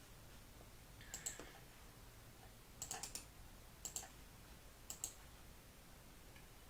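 A few sharp clicks in four short clusters, about a second apart.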